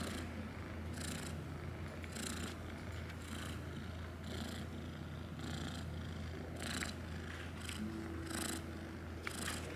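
Long-haired domestic cat purring steadily close to the microphone, with a soft breathy swell about once a second as it breathes in and out.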